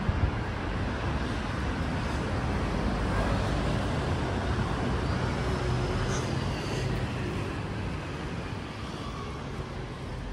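City street traffic: road noise of passing cars, swelling over the first few seconds and easing off near the end, with a couple of brief knocks right at the start.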